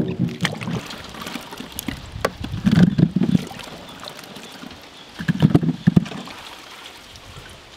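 Water sloshing and splashing in a large aluminium pot as hands stir and lift apples through it, louder in two bursts about three and five and a half seconds in, with scattered small knocks.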